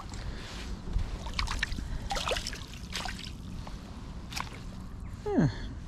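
Small splashes and drips of water around a landing net holding a freshly netted perch at the water's surface.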